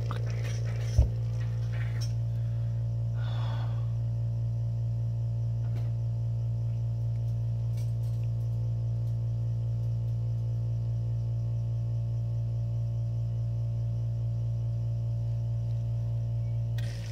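Steady low electric hum at constant level, with a single sharp knock about a second in and a brief rustle a couple of seconds later.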